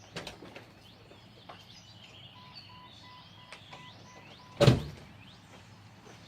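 A vehicle's electronic warning chime beeps faintly, about three beeps a second, then stops at a single loud thump about four and a half seconds in. A click comes right at the start, and birds chirp in the background.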